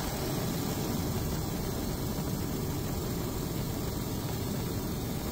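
Steady drone of a helicopter's engine and rotor, heard from aboard the aircraft.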